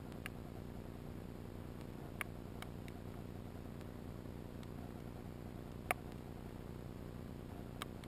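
Underwater ambience on a shallow oyster bed: a steady low rush of water noise with a few scattered sharp clicks, about seven in all, the loudest about six seconds in.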